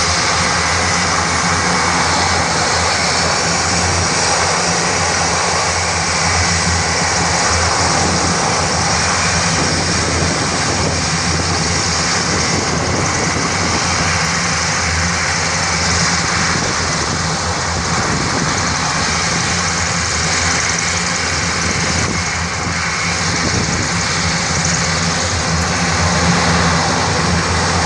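Airbus A400M's four turboprop engines and propellers running, a loud, steady drone with a low hum.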